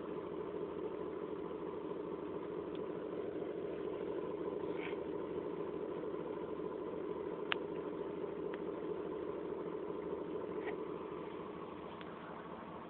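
Steady mechanical hum, like a fan or small motor running, with a sharp click about seven and a half seconds in and a few fainter ticks; the hum gets quieter near the end.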